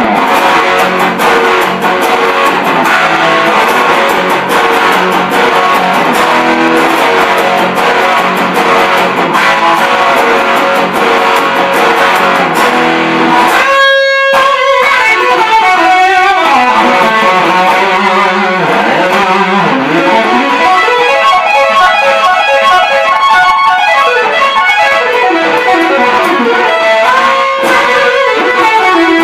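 1988 Ibanez JEM77FP electric guitar played through the distorted drive channel of a 1987 Mesa/Boogie Caliber Plus amp. Busy lead playing stops briefly about halfway, then goes on with sweeping rising and falling pitch bends.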